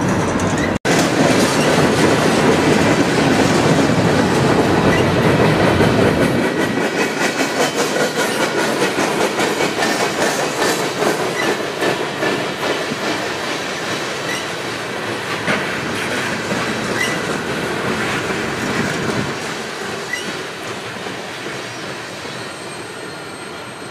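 Freight cars rolling past on jointed track, wheels clicking over the rail joints with some wheel squeal. The sound cuts out for an instant about a second in, and the heavy rumble drops away after about six seconds, fading steadily as the train moves off.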